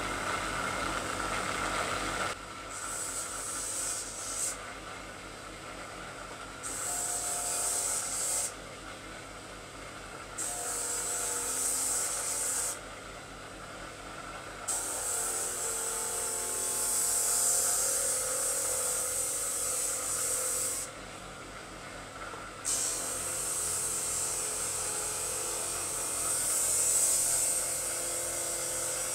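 Homemade drum sander driven by a 400 W bench grinder runs with a steady whine while its sandpaper drum grinds a rough wooden board. The rasping hiss of the sanding comes and goes in about five passes of a few seconds each.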